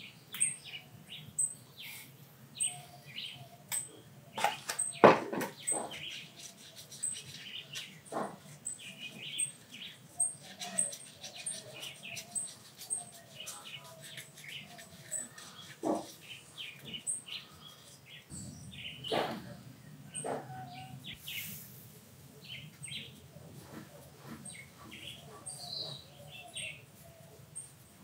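Small birds chirping over and over in short high chirps, with a few sharp knocks and scuffs from handling a crankshaft pulley on a board, the loudest about five seconds in.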